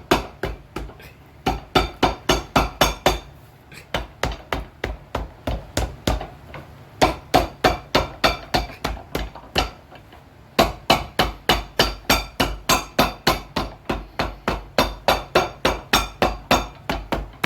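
Cobbler's hammer tapping rapidly on a freshly glued leather half sole, about five quick strikes a second, in runs with short pauses between.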